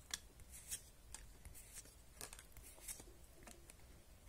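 Faint, irregular swishes of Pokémon trading cards sliding against one another as they are flipped through by hand, one card moved behind the next.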